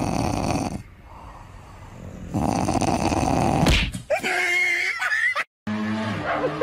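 A dog with its head pushed under a bed makes two long, rough, snore-like noises a second or so apart, then a short, higher, wavering whine-like sound; the sound cuts off abruptly about five and a half seconds in.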